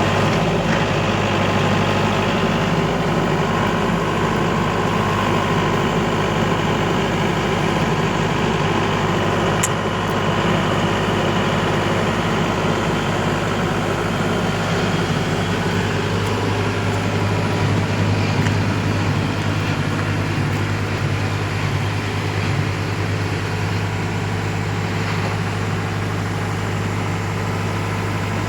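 Heavy diesel engine running steadily at low speed, a constant low hum with little change.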